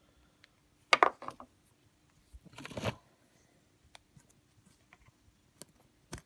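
Metal clinks and scrapes as a freed steel screw is worked out of an SU carburettor's alloy float chamber: a sharp clink about a second in, a longer scrape near the three-second mark, then a few light ticks.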